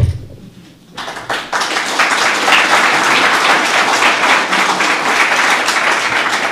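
A short low thump right at the start, then audience applause that starts about a second in and carries on steadily: many hands clapping at once.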